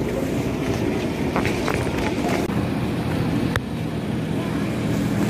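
Large airport terminal hall ambience: a steady rumble of air handling and background activity, with a few sharp clicks and knocks. A low steady hum sets in about halfway through.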